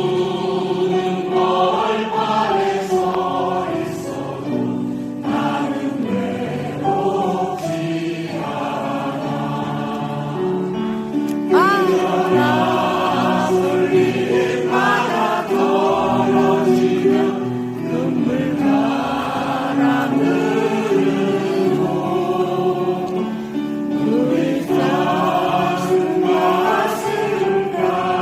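Choir singing a song with accompaniment, with voices sustaining long notes throughout.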